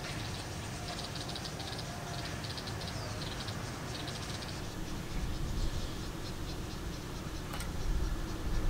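Outdoor ambience: short runs of rapid high-pitched chirping over a steady low rumble, with one sharp click near the end.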